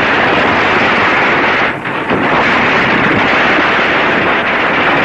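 Steady loud hiss, the surface noise of an old 1930 film soundtrack, with a brief drop in level about two seconds in.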